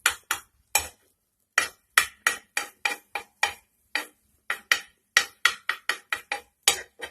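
A spoon tapping and knocking against a tawa griddle as an omelette's edges are pressed and loosened: a string of short, sharp clinks, irregular at about three a second with a couple of brief pauses.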